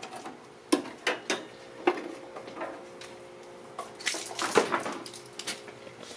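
Clicks, knocks and rattles of an electric-car charging cord and its plug connector being lifted off a wall holder and handled, with a louder cluster of knocks about four to four and a half seconds in. A faint steady hum runs underneath from about a second and a half in.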